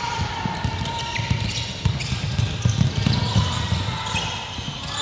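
Indoor basketball game in a large gym: the ball bouncing on the wooden court among other sharp knocks, loudest between about two and three and a half seconds in.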